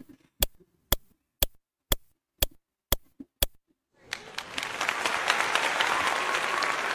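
A clock ticking, two sharp ticks a second, for about three and a half seconds, then a crowd applauding from about four seconds in.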